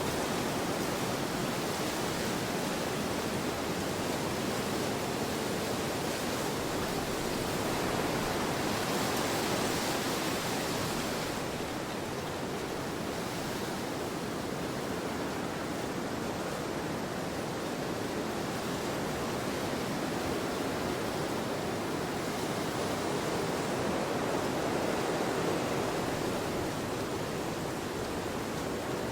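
Wind blowing steadily, an even hiss that slowly swells and eases, with a brighter, stronger gust about eight to eleven seconds in.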